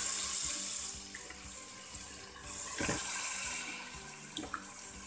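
Raw rohu fish pieces dropped into hot spiced oil in a metal karahi, each setting off a burst of sizzling that fades within about a second: one at the start and a second about two and a half seconds in.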